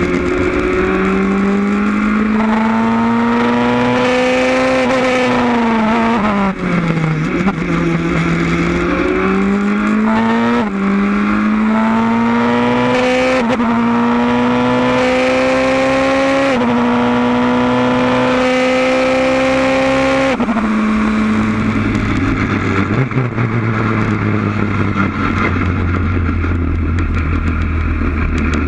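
Wolf GB08 sports racer's engine at full throttle, heard onboard, revving up through the gears with a string of quick upshifts, each one dropping the pitch before it climbs again. About six seconds in the note falls away under braking and then rises again. In the last third the car lifts off and the engine settles to a low, steady drone.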